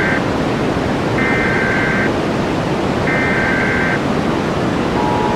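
Emergency Alert System SAME header: two more buzzing digital data bursts, each about a second long, follow the tail of a first, over a steady loud hiss. About five seconds in, the EAS two-tone attention signal begins and holds.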